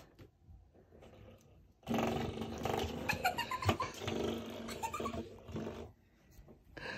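Puppy play-growling while worrying a doorstop: a long, wavering growl starting about two seconds in and dying away about six seconds in.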